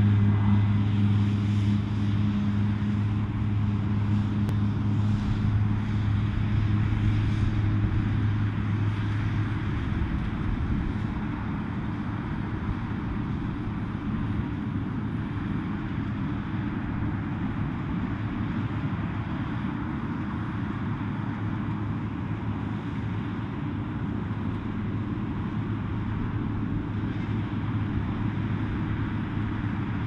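Claas Dominator 218 Mega combine harvester running while harvesting rapeseed: engine and threshing machinery make a steady mechanical din. A low hum is loudest for the first ten seconds or so, then drops back, leaving a more even noise.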